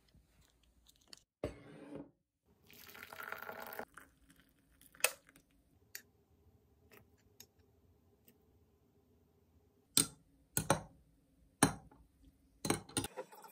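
A long metal spoon clinking against a glass jar and a glass mug, in scattered sharp taps, while green tangerine syrup is scooped out and stirred into water to make citrus tea. A short rush of noise about three seconds in.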